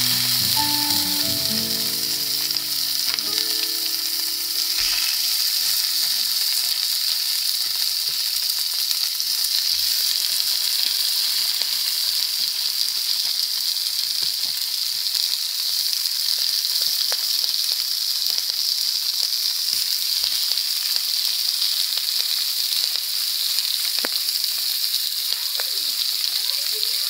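Whole fish frying in hot oil in a pan, a steady sizzle.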